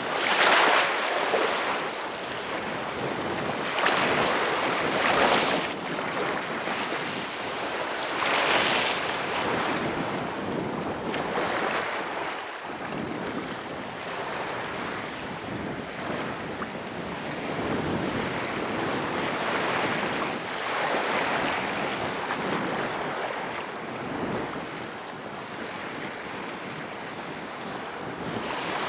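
Small waves washing up onto a sand beach in the shallows, each wash swelling and fading every few seconds, louder in the first half and gentler later.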